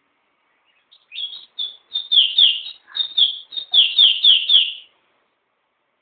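Caged pet songbird singing one phrase of about a dozen quick notes, each sliding down in pitch. The phrase starts about a second in, grows louder after the first few notes and stops just before five seconds.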